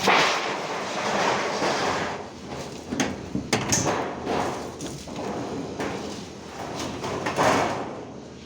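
Construction work noise: uneven scraping and rustling swells, with a couple of sharp knocks about three seconds in.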